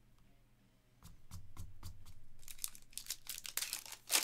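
A foil trading-card pack wrapper being torn open and crinkled, a dense crackle that starts about two and a half seconds in and is loudest near the end, after a few soft knocks.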